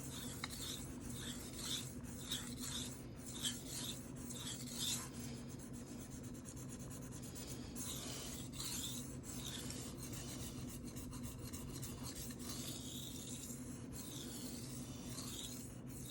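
CPM 154 steel knife blade stroked back and forth on a Shapton Rockstar 1000-grit whetstone: a faint, smooth, repeated scraping with little sound of cutting, over a steady low hum.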